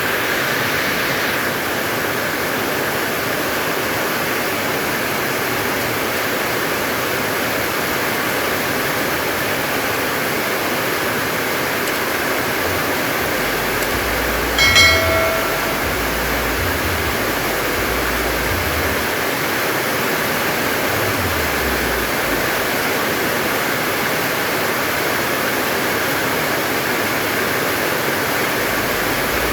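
Heavy rain falling steadily, a constant even hiss. About halfway through, a short pitched animal-like call sounds once, briefly louder than the rain.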